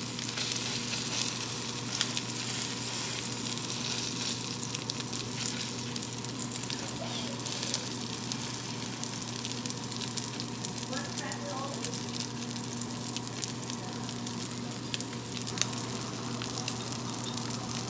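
A5 wagyu striploin steak sizzling in hot fat in a cast-iron skillet: a steady frying hiss full of small crackles and pops.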